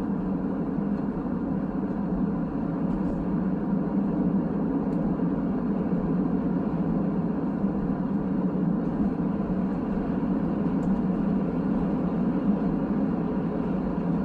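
Steady road and engine noise heard inside the cabin of a car being driven.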